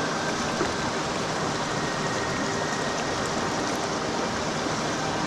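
Steady rushing of a river's current.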